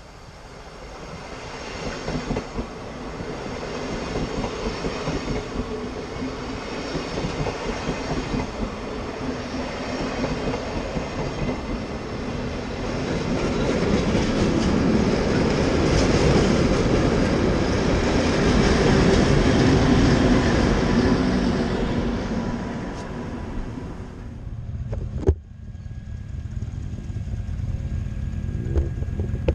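An ÖBB passenger train runs past close by, its wheels rattling on the rails. The noise builds as it approaches, is loudest through the middle, and dies away well after the halfway point. A single sharp knock follows, then a steady, quieter hum.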